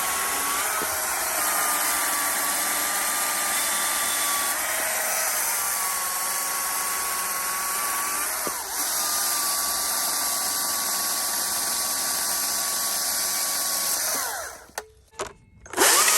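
Small handheld power saw running with a steady high whine, its pitch dipping briefly every few seconds as it bogs into wood. Near the end it stops, gives two short blips, and starts again.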